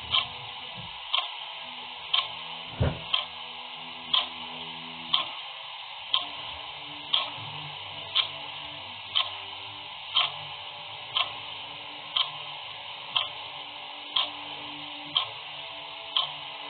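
Clock ticking steadily, about one tick a second. A single low knock falls between two ticks about three seconds in.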